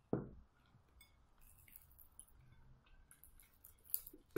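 Quiet eating sounds: chewing and small clicks of wooden chopsticks picking at a sticky-rice zongzi in a ceramic bowl. A short low thump comes just after the start and a sharp click near the end.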